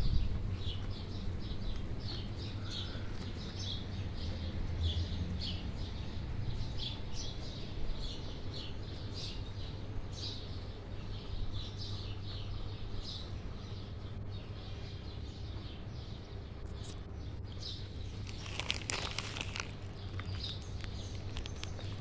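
Small songbirds, which the uploader calls nightingales, chirping in the trees in quick, repeated short high notes, with a louder, fuller burst of calls a few seconds before the end. A low steady hum runs underneath.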